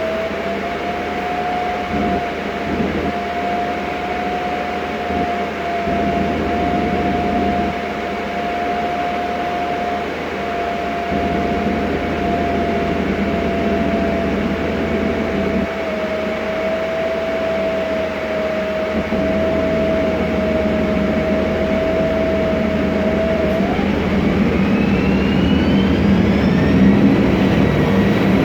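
Inside a 2007 MAN Lion's Classic city bus under way: its MAN E2876 CNG engine and road noise, with a steady whine from the Voith DIWA 864.3 automatic gearbox that sinks slowly in pitch. About 24 seconds in the whine rises sharply in pitch as the bus accelerates.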